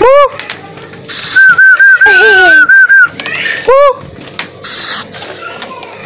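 Whistled calls made to lure a tame scops owl back: a short rising-and-falling note, then a loud warbling, trilled whistle for about two seconds, another short note, and a couple of breathy hisses near the end.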